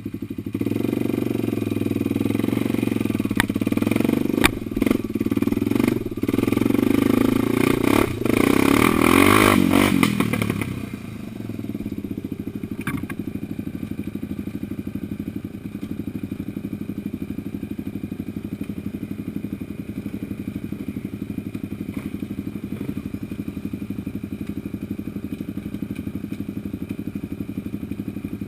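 Off-road vehicle engine worked hard on a hill climb, with knocks and clatter from the vehicle over rough ground; about eleven seconds in it drops back to a steady idle.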